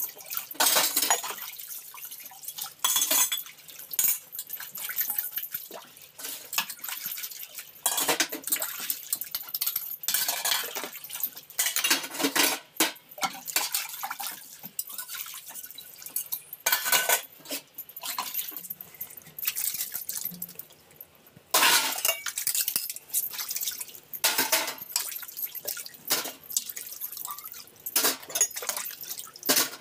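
Steel utensils being hand-washed in a karahi of water: irregular splashing and pouring of water, with metal dishes clinking and scraping against each other and the pan.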